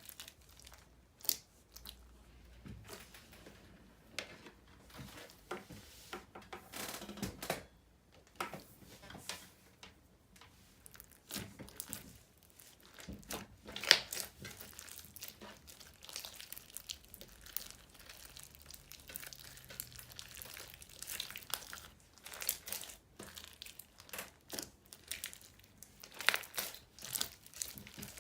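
Hand-played slime being squished, stretched and pressed, with soft irregular crinkly crackles and small sticky pops; the sharpest pop comes about halfway through.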